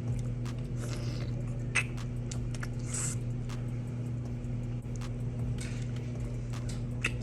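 Eating a balut egg: scattered small clicks and a few short soft scrapes of shell and egg being handled and chewed, over a steady low hum.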